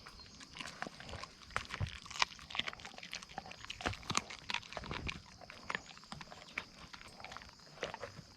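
Wolfdogs chewing raw deer carcass, with irregular sharp cracks and crunches of bone being bitten through.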